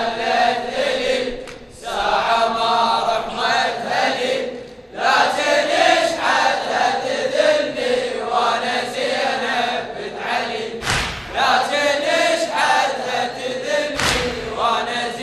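Men's voices chanting a Shia latmiya mourning chant in chorus, in long sung phrases with short breaths between them. Two dull thumps sound over the singing near the end.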